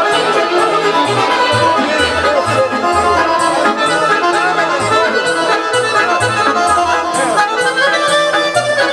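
Live Bosnian folk music led by accordion, with a steady beat of cymbal strokes about twice a second and a pulsing bass line.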